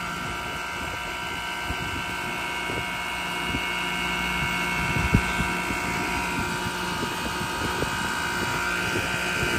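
Refrigeration condensing unit running, its compressor sounding torn up: a steady hum and high whine with scattered knocks, one louder knock about five seconds in. The compressor's valves are shot, so it cannot pump down.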